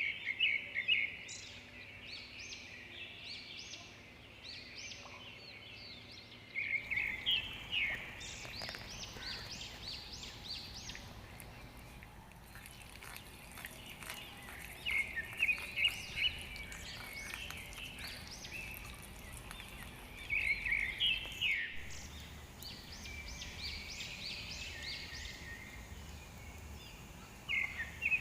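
Birds singing: a loud song phrase returns every six to eight seconds, with many short chirps in between, over a steady background hiss.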